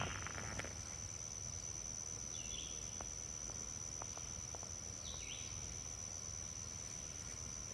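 Woodland ambience: insects keep up a steady, high-pitched drone, with three brief bird chirps and a low rumble underneath.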